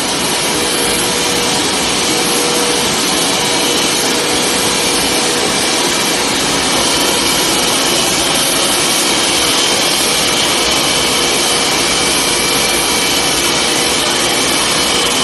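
Steady loud whine and rush of the machinery powering a Boeing 747 landing-gear retraction test on the ground, with several high tones held throughout.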